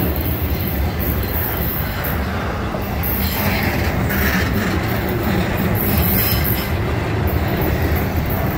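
Steel wheels of a trailer-on-flatcar intermodal freight train rolling steadily past on the rails. The sound turns harsher for a moment about three to four seconds in.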